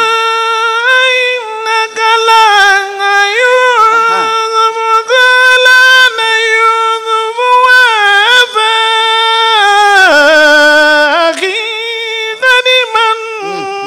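A man chanting Quranic verses in melodic recitation: one high voice holding long notes with ornamental turns. It drops to a lower note about ten seconds in.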